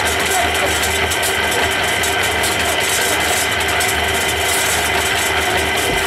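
Small drum concrete mixer running steadily, its drum turning with a constant hum and rattle while mixing mortar.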